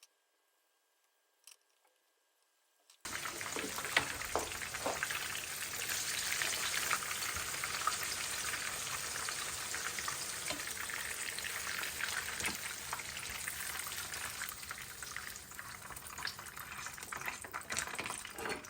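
Food frying in hot oil in a pan: a steady sizzle with scattered crackles. It starts suddenly about three seconds in, after near silence.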